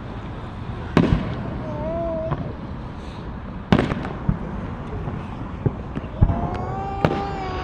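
Fireworks going off: four sharp bangs a second or more apart over a steady background of distant crackle, with a long wavering pitched tone near the end.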